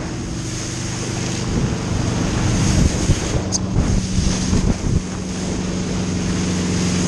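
Wakeboard carving through a boat's wake, with water rushing and spraying and wind buffeting the handle-mounted camera's microphone. Under it is the steady drone of the tow boat's inboard engine.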